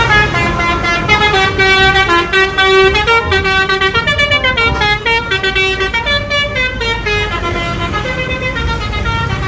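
Multi-tone telolet bus horn playing a tune, its notes stepping up and down every half second or so, over the low rumble of a running engine.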